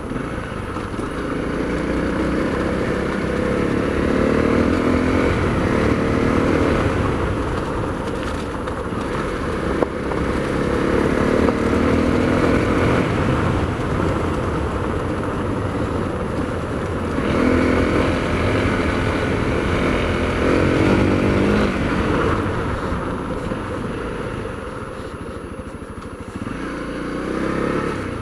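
Honda CRF250L's single-cylinder four-stroke engine running on the move, its pitch rising and falling again several times as the rider accelerates and eases off through the gears.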